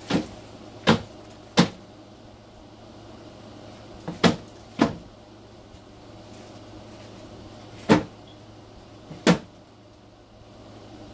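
Cardboard egg crates being knocked against a bucket to shake Dubia roaches off: about seven sharp knocks in uneven groups, three in quick succession at the start, then two more pairs.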